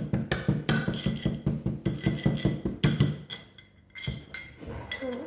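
Cloves being pounded with a pestle in a mehraz (mortar), ground down to powder. The strikes come fast and even, about four or five a second, each with a short ringing. After about three seconds they give way to a few scattered knocks.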